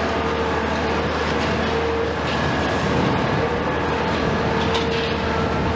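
CAT 374F demolition excavator's Cat C15 diesel engine and hydraulics running steadily under load, with a recurring hydraulic whine, as its demolition jaws crush concrete. A few sharp cracks of breaking debris near the end.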